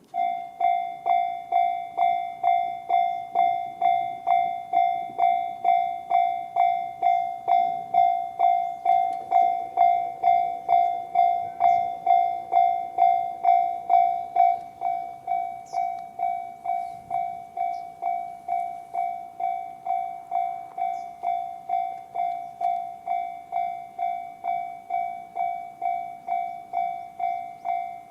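Japanese railway level-crossing alarm with the JR standard electronic bell sound, starting up and striking one clear ringing note at about two strikes a second. About halfway through it drops to a noticeably lower volume and keeps ringing at the same pace.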